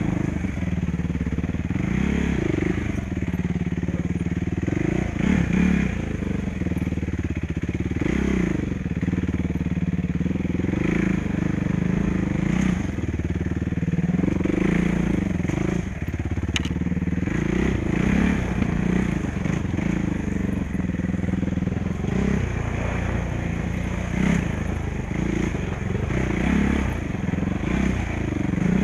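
Suzuki RMX450's single-cylinder four-stroke engine running on and off the throttle, its pitch rising and falling every couple of seconds as the rider accelerates and backs off along rough dirt trail.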